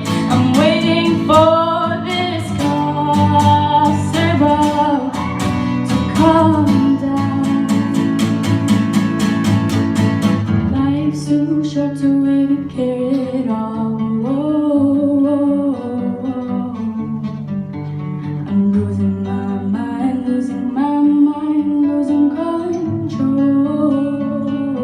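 A girl singing live with guitar accompaniment. The guitar is strummed steadily and densely for about the first ten seconds, then drops to a lighter, sparser part while the singing carries on.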